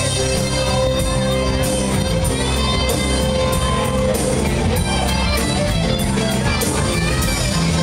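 Live rock band playing loud: electric guitars over bass and drums, with regular cymbal hits.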